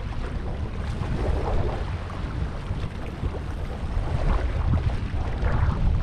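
Wind buffeting the microphone with a heavy uneven rumble, over small waves washing and splashing across a flat rock ledge at the water's edge.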